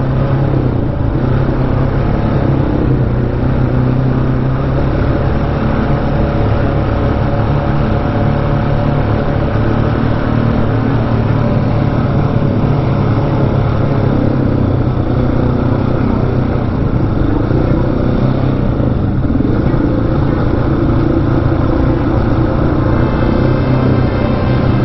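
Single-cylinder supermoto motorcycle engine running at a steady speed, heard from on board the bike.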